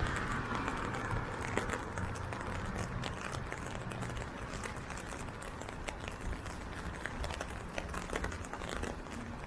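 Steady rain, with raindrops ticking sharply and irregularly on an umbrella overhead, over a low rumble of city traffic.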